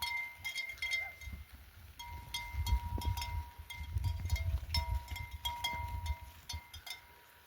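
Livestock neck bells on a grazing flock clinking and ringing irregularly as the animals move, over a low rumble.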